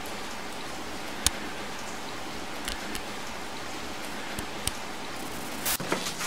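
Steady hiss with several sharp clicks scattered through it, the loudest about a second in.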